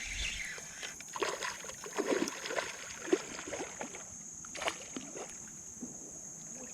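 Creek water splashing and sloshing in irregular bursts while a hooked smallmouth bass is fought, busiest in the first half, with one sharp click about three seconds in, over a steady high-pitched whine.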